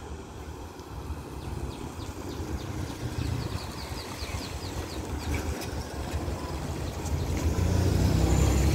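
Road traffic: a pickup truck's engine passing about four seconds in over a low rumble that grows louder near the end. A quick run of short high chirps sounds between one and three seconds in.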